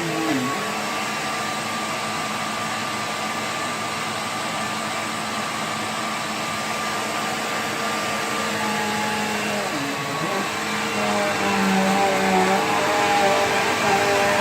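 Bissell PowerGlide Platinum bagged upright vacuum running with a steady motor whine and airflow hiss. Its pitch dips briefly just after the start and again about ten seconds in, and it runs louder near the end.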